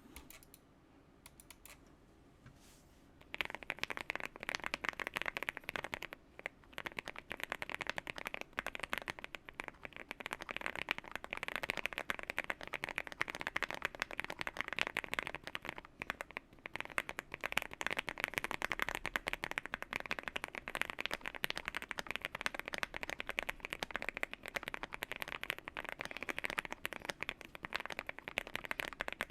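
Fast typing on a Zoom65 mechanical keyboard with Gateron Oil King linear switches, fully foamed and tape-modded: a dense, continuous run of deep keystrokes (a thock) starting about three seconds in, with a couple of brief pauses.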